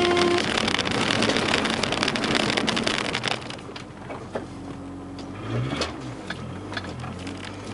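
Car heard from inside the cabin driving across a grass field: loud tyre and road noise with grit and debris pattering on the underside for about three seconds, then it eases off to a quieter low engine note with one brief rev about six seconds in. A short beep sounds right at the start.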